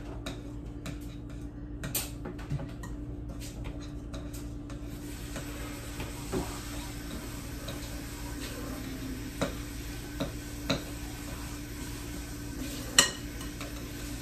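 Butter-and-sugar cookie dough being creamed by hand in a glass bowl: the utensil stirs and scrapes through the stiff mixture, with a few sharp clinks against the glass, the loudest near the end.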